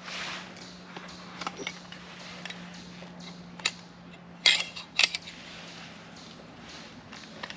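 Camp gear being handled by hand: a series of sharp clicks and knocks of hard items, the loudest a cluster about four and a half to five seconds in.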